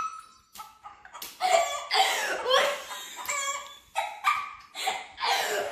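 A dog barking, several uneven calls from about a second in.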